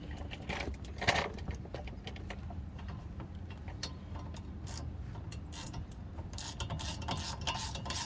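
Scattered metal clicks and knocks of hand tools at a car's rear brake caliper, the loudest about a second in, giving way about six seconds in to fast, steady clicking of a socket ratchet being worked on a bolt.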